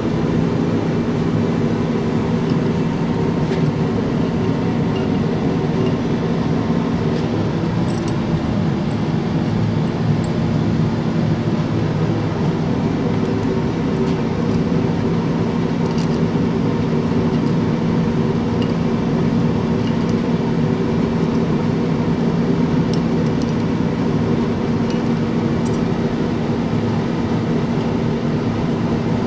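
A steady machine hum, like a shop fan or air conditioner, runs throughout. Over it come faint, scattered light clicks of small metal carburetor parts and pliers being handled on the bench.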